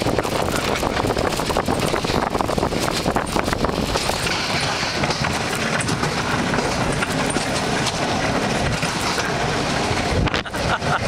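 Bobsled ride car running down its rail track, a continuous loud rumble and rattle of its wheels on the rails, easing briefly near the end.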